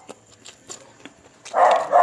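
A dog barking, a loud double bark near the end, with faint small clicks between.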